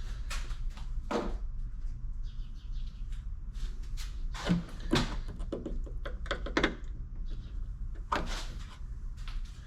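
Irregular knocks, clicks and scrapes of a tool and hands prying at the plastic trim cover on a car's trunk lid, loudest about five seconds in.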